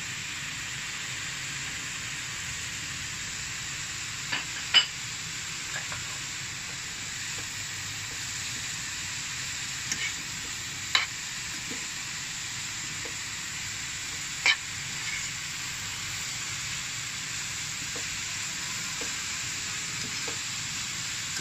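Shredded cabbage, carrot and capsicum sizzling steadily as they stir-fry in a pan, with a spatula stirring through them and knocking sharply against the pan a few times.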